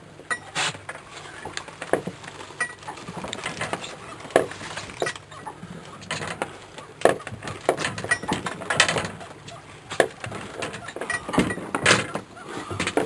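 Irregular clicks and knocks, about one or two a second, some sharper than others.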